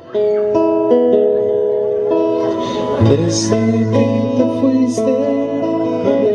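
Guitar playing a slow melody with long held notes; a low bass note comes in about three seconds in.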